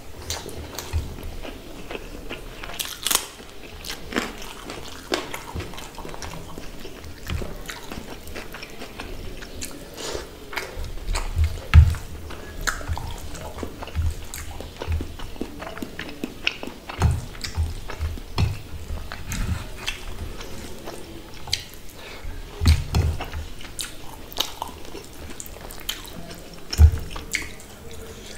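Close-miked eating sounds: chewing and wet mouth clicks as a mouthful of rice and fish curry is eaten by hand, with a few low thumps.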